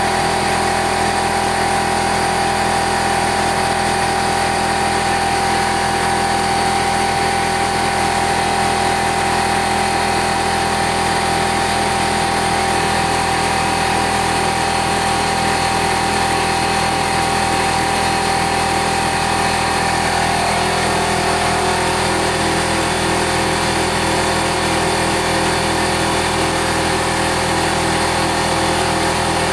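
The 800 W spindle of a CNC 3020 router runs at about 20,000 rpm with a 0.093-inch four-flute end mill, facing off a 1-inch round of 6061 aluminium held in the fourth-axis chuck. It makes a loud, steady machining whine made of several constant tones, one of which shifts slightly about two-thirds of the way through.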